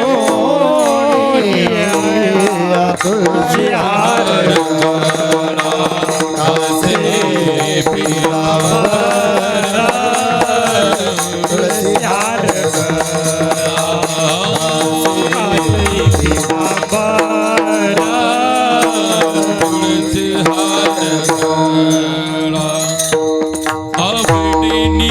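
Marathi devotional kirtan music: a bending, ornamented melody over a steady drone, with hand-drum strokes throughout.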